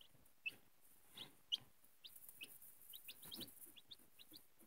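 Day-old chicks peeping softly under a heat lamp: short high chirps, scattered at first and coming thicker and overlapping in the second half.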